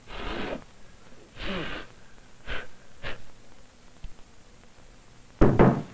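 A man's breathy exhalations: several short puffs about a second apart, with a louder voiced sound near the end.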